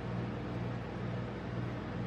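Steady low hum with an even hiss from the refrigeration unit under a rolled-ice-cream freezer plate.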